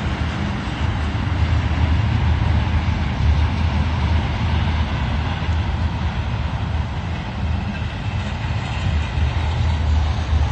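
Snowstorm wind blowing hard against the microphone: a steady hiss over a low, unsteady rumble of buffeting.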